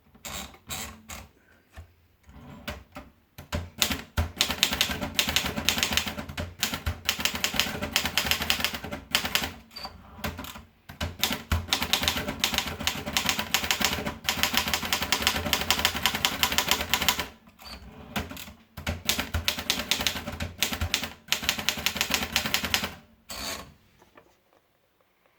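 Erika Model 11 portable manual typewriter being typed on quickly: long runs of rapid key and typebar clacks, broken by a few short pauses. A brief high ding comes just before three of the pauses.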